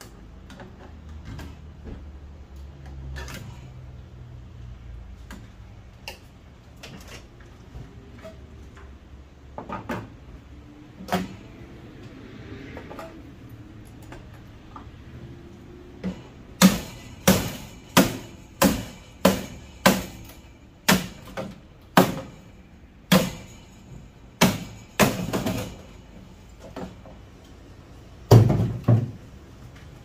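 Hammer striking the sheet-metal cabinet of a furnace being broken down for scrap: scattered light metal clanks at first, then a fast run of about fifteen sharp strikes, roughly two a second, starting a little past halfway, and one more heavy strike near the end.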